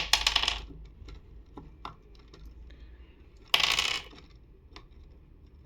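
Small metal screwdriver bits clinking and rattling as they are sorted through for one that fits. There are two short rattles, one at the start and one about three and a half seconds in, with scattered light clicks between.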